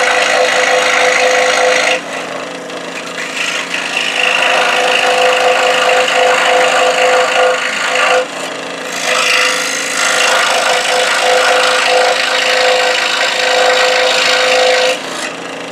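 Scroll saw running and cutting through wood: a steady, loud buzzing rasp of the reciprocating blade with a constant hum, the cutting noise dropping back briefly three times, about two seconds in, around eight seconds and near the end, as the blade eases off in the corners.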